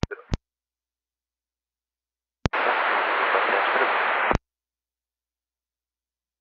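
Air-band radio receiver tuned to airport frequencies: squelch clicks as a transmission closes. About two and a half seconds in, another click opens nearly two seconds of static hiss with no voice, a blank transmission, which ends abruptly with a click.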